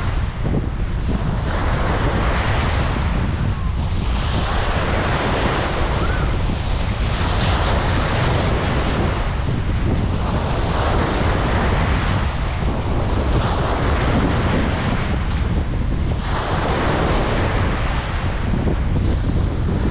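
Ocean surf breaking on a beach, the wash of the waves swelling and easing every few seconds, over a steady low rumble of wind on the microphone.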